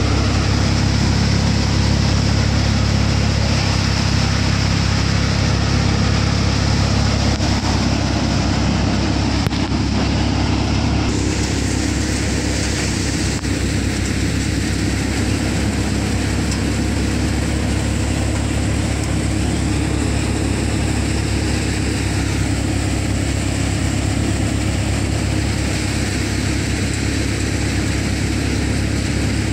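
An engine-driven crop threshing machine running steadily: a continuous low engine drone with a broad rushing noise from the threshing and sieving over it.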